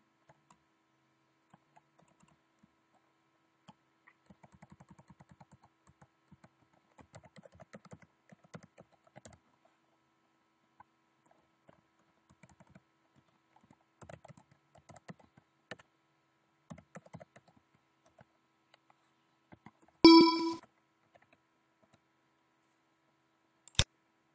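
Computer keyboard typing in scattered bursts of keystrokes. About 20 seconds in, a short, loud electronic beep made of several tones sounds, the loudest thing here. A couple of sharp clicks come near the end.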